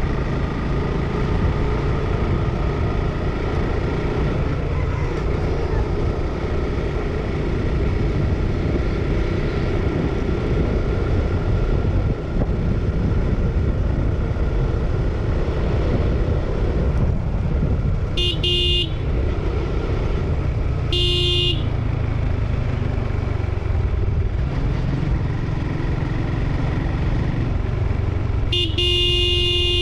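Motorcycle engine running and wind rushing past while riding along a road, with a horn sounding three times: two short beeps about three seconds apart, then a longer blast near the end.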